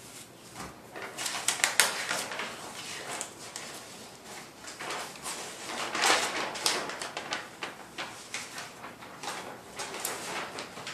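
Glossy magazine paper rustling and crackling as a large folded poster is pulled from a stack and opened out, with louder crackles about two seconds and six seconds in.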